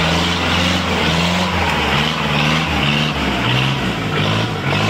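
Engine of an old open-top jeep running hard under load as it drives through mud up a dirt trail. The engine note rises and falls several times and climbs again near the end, over a steady rushing hiss.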